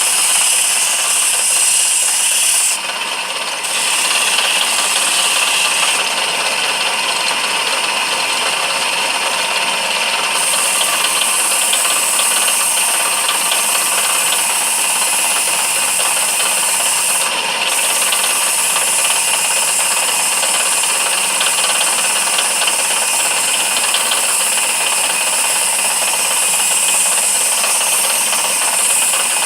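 Lathe running while a walnut handle is worked on it, a steady motor sound under a loud high hiss from the spinning wood. The hiss drops away briefly about three seconds in and again past the middle, as the tool comes off the work.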